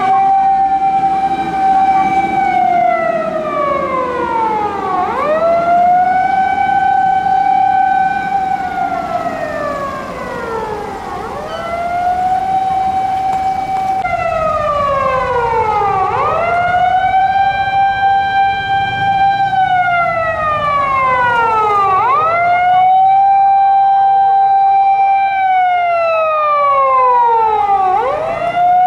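Fire engine's mechanical motor siren wailing: it winds up quickly to a steady high note, holds it for a couple of seconds, then winds slowly down, over and over about every five to six seconds.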